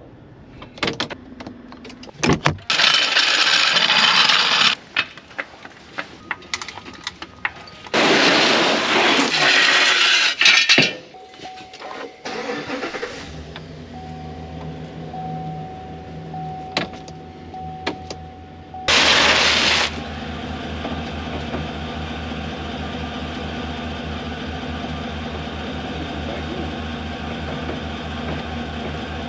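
Clicks and bursts of loud rushing noise, then a GMC pickup truck's engine starts about halfway through and settles into a steady idle. A single steady chime tone sounds over it until a loud burst of noise about two-thirds of the way in.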